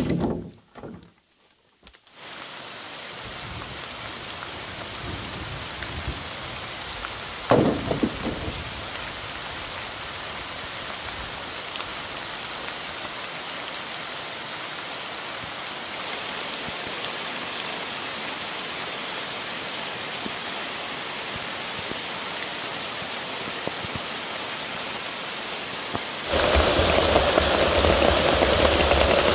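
Steady rain falling, an even hiss, with a single knock about seven and a half seconds in. Near the end a louder, deeper rushing noise takes over suddenly.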